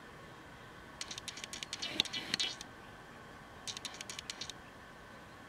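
Mascara wand brushed through eyelashes: two bursts of fast, fine scratching strokes, the first about a second and a half long, the second shorter, near the end.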